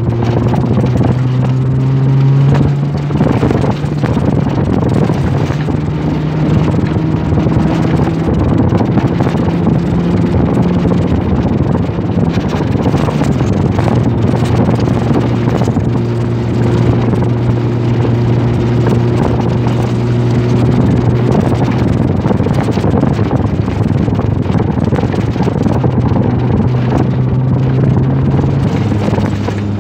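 Off-road 4x4 vehicle's engine running under way on a dirt road, its note climbing slowly and dropping back several times. Wind and road noise hiss underneath.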